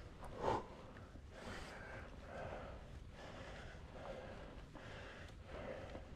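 A cyclist's heavy, rhythmic breathing, about one breath a second, with a louder gasp about half a second in: laboured breathing from pedalling up a steep climb of about 20%.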